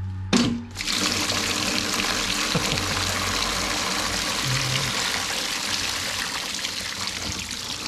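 Coolant and water running out of a Chrysler 318 marine V8 engine block, a steady rushing splash, after a short knock at the very start.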